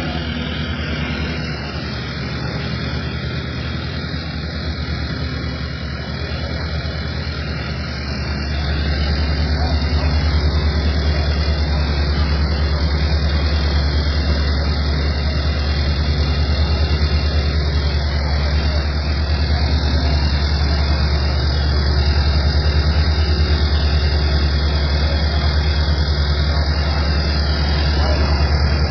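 Steady low engine hum with broad mechanical noise over it, growing louder about eight seconds in and then holding level.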